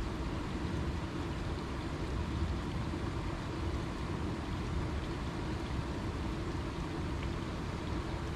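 Steady hiss of light rain falling on the surface of a pond and the surrounding bushes, over an uneven low rumble.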